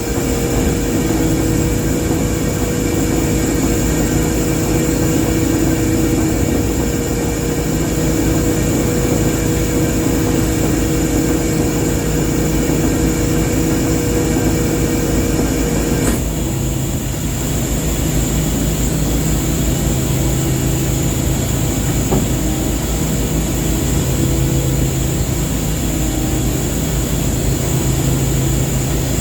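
Ship's engine running with a steady drone and a few held tones. About halfway through, the higher whine drops out and a lower hum comes up.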